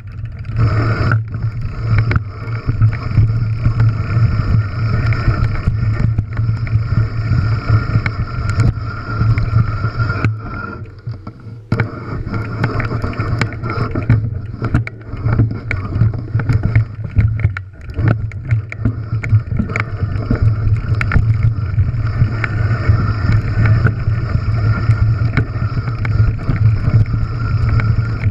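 Enduro mountain bike descending a rocky, gravelly trail, heard from a camera on the bike or rider. A steady low rumble of wind and rolling tyres runs under frequent knocks and rattles as the bike hits loose stones. The sound eases off briefly about ten seconds in and again near eighteen seconds, when the bike slows.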